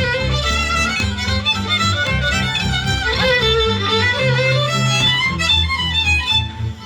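Live folk band playing an instrumental tune in a British Isles style, with a fiddle carrying the melody over sustained low bass notes and chords.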